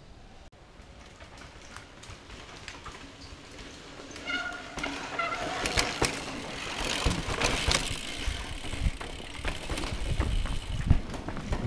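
Mountain bike riding a rough dirt forest singletrack: tyres rolling over dirt and roots, with the chain and frame rattling and knocking. It is faint at first and gets louder from about four seconds in, with a low rumble joining a few seconds later as the bike picks up speed.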